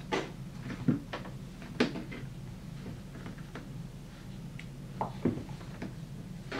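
Scattered soft knocks, taps and rubbing as cold process soap cupcakes are pushed out of a silicone mold and handled, over a steady low hum.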